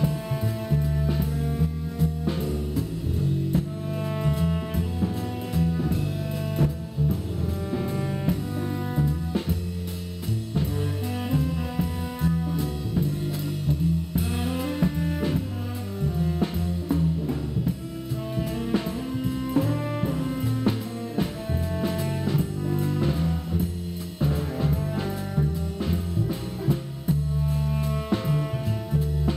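Instrumental jazz-style background music with a drum kit keeping a steady beat and held melody notes.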